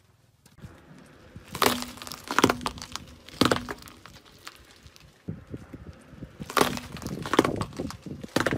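Objects crushed under a car tyre on concrete: sharp crunching cracks in two bouts, the first starting about one and a half seconds in and the second about six and a half seconds in.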